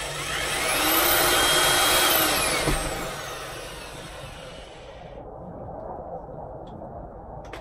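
Corded electric drill's motor whining up to speed, holding for about a second, then winding down. Its hiss fades out about five seconds in.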